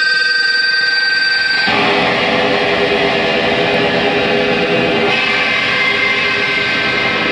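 Electric guitar played through a board of effects pedals: a sustained droning tone, then about a second and a half in a dense noisy wash cuts in over it and holds.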